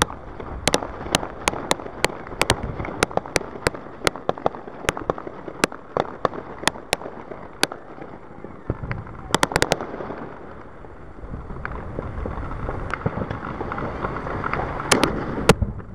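Fireworks display: a rapid run of sharp bangs and cracks, a few each second, then a quick cluster of cracks just before the halfway point. After that a steadier hissing rush builds, topped by two loud bangs near the end.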